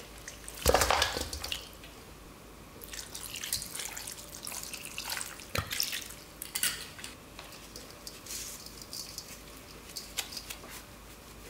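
Raw chicken pieces tipped from a strainer into a stainless steel bowl, landing with a loud wet slap about a second in. Soju is then poured over the meat in splashing trickles, with a few sharp clicks against the bowl, and salt is sprinkled on near the end.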